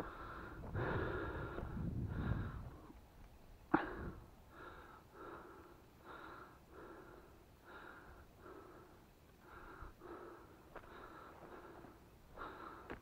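Hunting dog panting close up in short, even breaths, about one and a half a second. There is some rustling in the first couple of seconds and one sharp knock about four seconds in.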